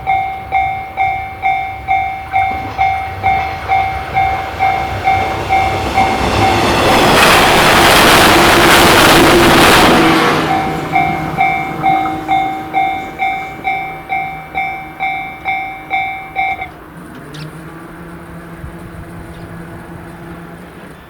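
Japanese level-crossing warning bell ringing at about two strikes a second. A train rushes past for about four seconds and drowns the bell out, then the bell rings on and stops about three quarters of the way through, leaving a low steady hum.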